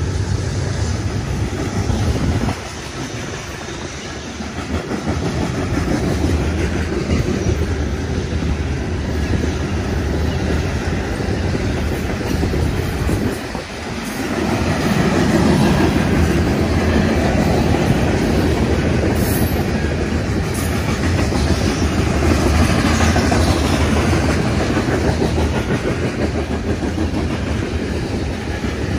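Freight train of covered hopper cars rolling past, steel wheels running on the rails.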